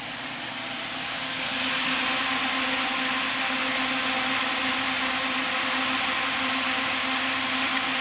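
Steady whirring hum of a BTU hydrogen belt furnace's machinery running, a low steady tone under a broad hiss. It grows louder over the first two seconds, then holds level.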